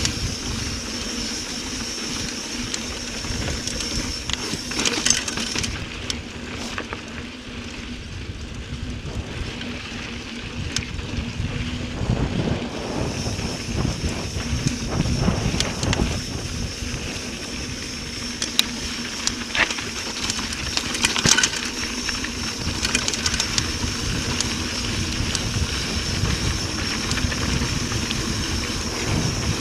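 Mountain bike riding fast down a dirt singletrack: rumble of the tyres on the dirt, with the bike rattling and knocking over bumps and wind buffeting the microphone.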